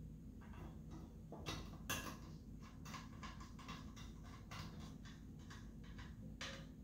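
Faint, irregular clicks and light scrapes of small M4 screws being fitted into a steel equipment case's cover, with two slightly louder clicks about a second and a half in.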